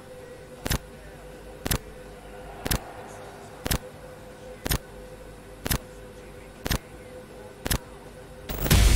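Countdown sound effect: a sharp tick once a second, eight in all, over a steady low drone with a held tone. Heavy rock music with electric guitar comes in loudly just before the end.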